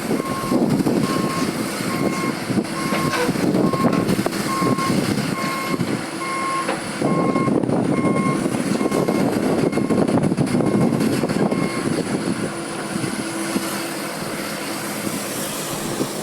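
Heavy construction machine, plausibly an excavator, running with a loud, steady diesel engine rumble. Its travel/reversing alarm beeps about twice a second and stops about twelve seconds in.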